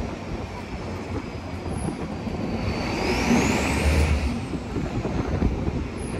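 Open-top double-decker tour bus driving along a city street, heard from its upper deck as steady road and engine noise. A thin high whine slides down in pitch, sweeps up sharply about three seconds in, then falls again. The rumble and hiss swell briefly at the same time.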